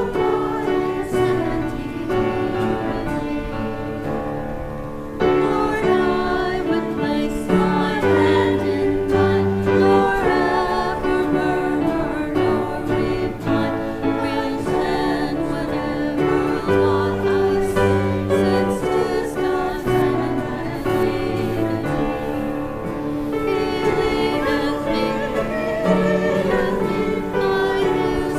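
Church congregation singing a hymn together, with instrumental accompaniment holding low bass notes beneath the voices.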